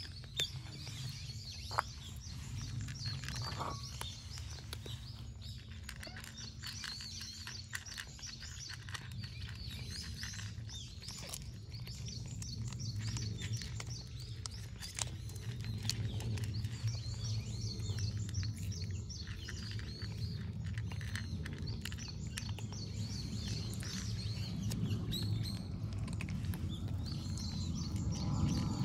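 Small birds chirping, a dense, continuous chatter of short high calls, over a steady low background rumble.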